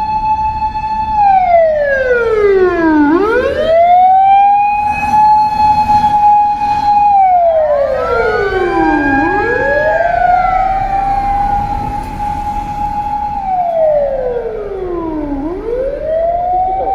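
Japanese fire department motor siren sounding loud: a held high wail that slides down and swoops back up, three times.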